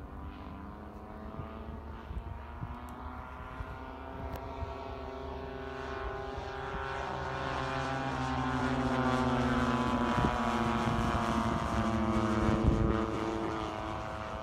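Lockheed P-38 Lightning flying past, the steady multi-toned note of its twin Allison V-12 engines growing louder as it approaches. It is loudest from about nine to thirteen seconds in, as it passes overhead, then begins to fade.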